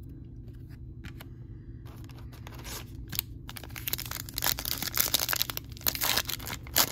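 A foil trading-card pack wrapper being torn open and crinkled, starting about two seconds in and getting louder, with a few light clicks before it and a low steady hum underneath.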